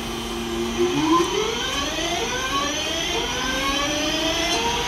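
A Class 323 electric multiple unit pulling away. Its traction equipment holds a steady two-note hum, then about a second in starts a rising whine that climbs in steps and restarts lower several times as the train gathers speed.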